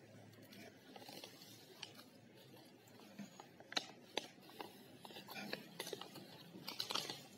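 Paper journal pages being turned by hand, rustling and crackling, with a few sharp crackles about four seconds in and a busier patch of rustling near the end.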